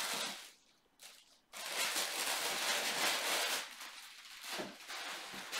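Paper and plastic wrapping rustling and crinkling as clothes are unwrapped and handled. There are short rustles at the start and about a second in, then a loud stretch of rustling for about two seconds, softer toward the end.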